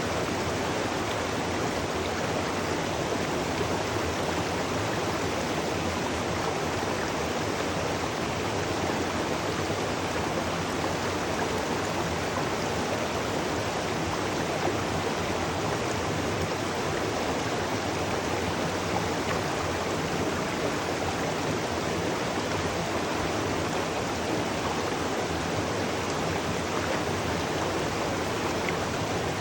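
Waterfall pouring steadily into a stream: a continuous, even rush of falling water with no breaks.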